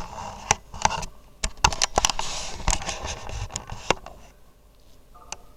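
Irregular clicking and tapping on a computer keyboard and mouse, about a dozen sharp clicks with some rustling, stopping about four seconds in.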